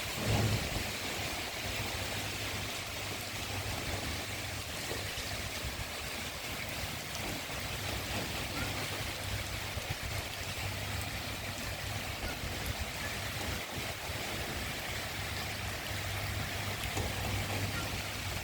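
Steady rain falling, an even hiss of water with a constant low hum underneath.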